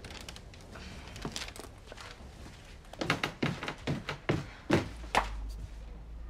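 Footsteps going down a staircase: a few light steps, then about eight quick, heavier footfalls in a row.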